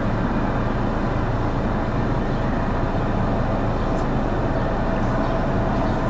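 A vehicle engine running steadily, a low even rumble with a faint hum in it.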